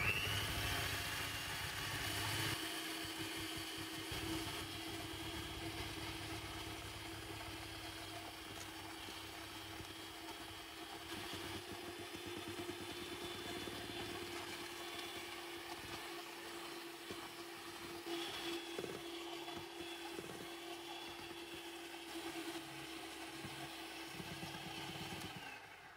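Electric hand mixer running at a steady speed, its motor giving a constant whine as the twin beaters whip eggs and sugar into a thick, pale foam. It switches on right at the start and cuts off just before the end.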